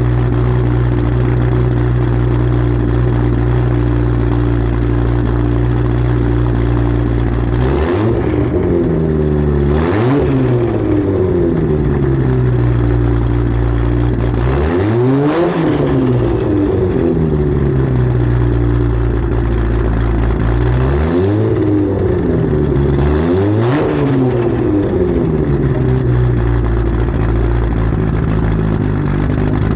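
Single-turbo Mk4 Toyota Supra's 2JZ straight-six idling, then free-revved in short blips. There are two quick revs about eight and ten seconds in, a longer one around fifteen seconds, and two more around twenty-two and twenty-four seconds, each falling back to a steady idle.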